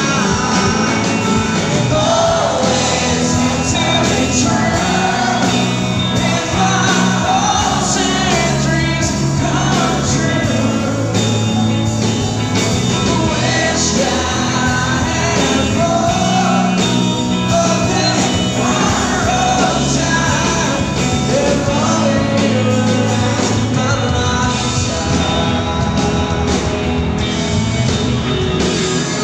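A rock band playing a song live, with electric guitar, bass and drums under singing, heard loud through the PA.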